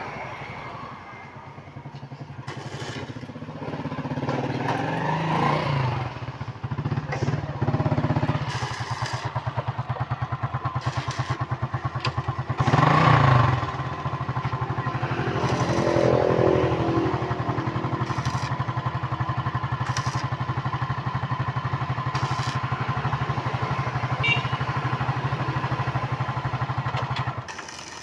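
Engine running steadily with a rapid firing pulse, briefly rising and falling in pitch twice, then cutting off suddenly near the end.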